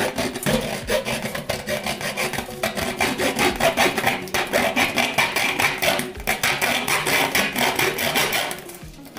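Saw blade cutting into the aluminium screw cap of a light bulb, rasping in quick back-and-forth strokes, with a short let-up near the end.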